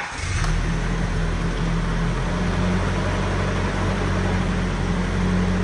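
Nissan pickup's engine running steadily just after being started, with the freshly reassembled transmission turning and making no noise.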